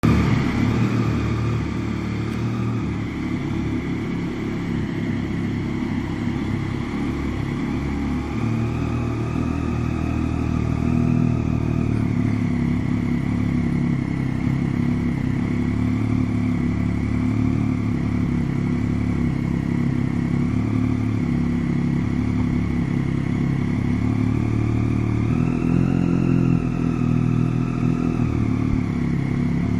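Triumph Daytona 675's three-cylinder engine idling through a Roncar Coyote SS2 aftermarket exhaust. The revs rise slightly twice, around ten seconds in and again about twenty-five seconds in.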